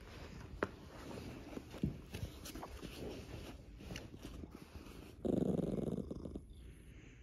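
Tabby cat purring steadily, with a small dog growling for about a second about five seconds in.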